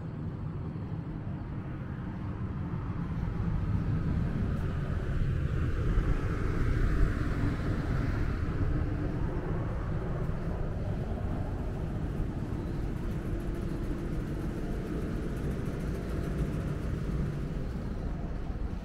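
Steady low rumble of city traffic, swelling from about three seconds in to a peak around seven seconds as something passes, then settling back to a steady drone.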